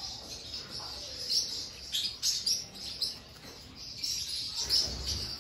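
Budgerigars chirping and chattering in quick short calls, with a metal spoon stirring plaster powder in a plastic bowl.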